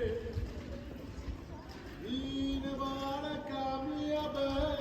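Music: long held notes, a few pitches in turn, begin about two seconds in, over a low rumble.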